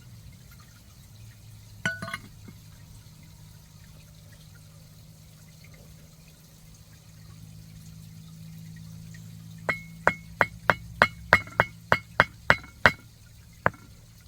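Glassware clinking over a low steady hum. There is one clink about two seconds in, then near the end a quick run of about a dozen ringing clinks, three or four a second, and one last clink.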